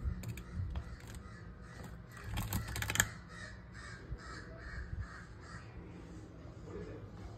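Hard shells clicking and clattering as live spiny lobsters are handled in a steel sink, densest about two to three seconds in. Then comes a run of about eight short, evenly spaced calls, roughly three a second.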